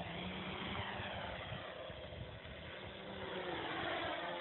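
Brushless motors of a quadcopter (2282-12 motors on an aluminium Armattan CNC-355 frame) running in flight, with a steady hum and whining pitch that shifts as the throttle changes, falling near the end.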